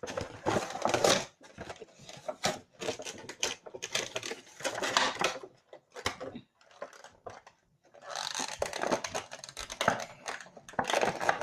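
Plastic and cardboard toy packaging being handled: irregular rustling, scraping and clicking in several bouts, with short pauses between them.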